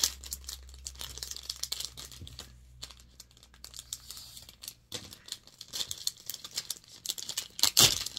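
Packaging crinkling and tearing as a haul package is worked open by hand, in irregular crackles with the loudest crackle near the end.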